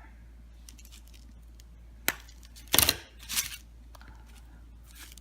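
A few short cracks and scrapes as pieces of a cut-open Eveready Heavy Duty battery are handled and broken apart, the loudest a crackling snap with a low thump just under three seconds in, followed by a smaller one.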